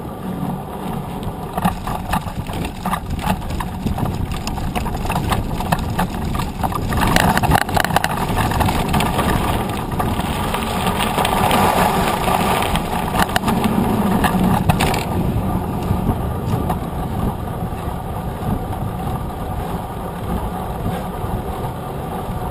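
Mountain bike riding fast, heard from a camera mounted beside its knobby front tyre: rumble of wind on the microphone and tyre noise, with rattling clicks over bumps. From about a third of the way in until about two thirds, it turns into a louder crunching hiss as the tyres roll over a gravel lane.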